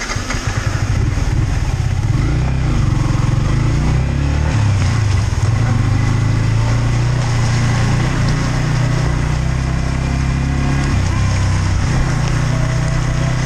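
Yamaha MT-15's 155 cc single-cylinder engine pulling away and running under way, its pitch shifting in steps as it changes gear, over a steady hiss of heavy rain and wind.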